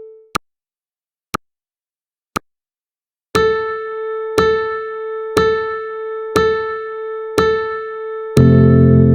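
Countdown timer sound effects: three short ticks a second apart, then five pitched beeps once a second, and near the end a loud, long, low buzzer sounding as the count reaches zero.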